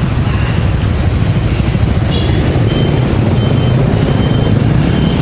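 Steady low rumble of wind on the microphone and street traffic during a bicycle ride, with a few short high beeps in the second half.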